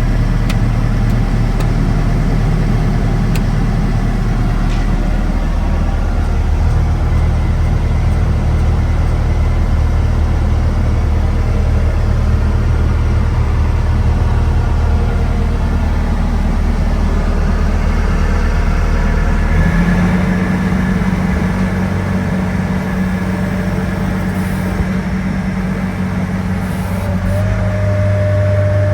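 Bobcat S650 skid steer loader's diesel engine running steadily, its speed stepping up abruptly about twenty seconds in and holding at the higher speed.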